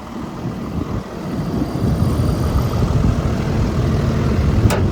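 Volvo EC220E excavator's 5.7-litre diesel engine running, growing louder from about a second in, with one sharp click near the end.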